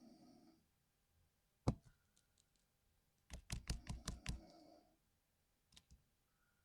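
Clacks from a 60% mechanical keyboard: one sharp click, then a quick run of about eight clacks within a second, and a couple of faint ticks near the end.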